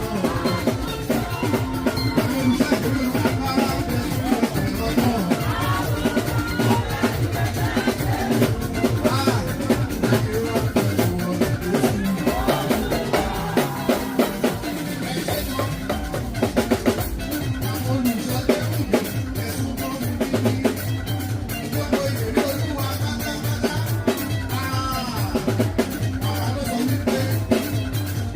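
Music with a drum kit playing a fast, steady beat throughout, over a steady low bass line and a wavering melody.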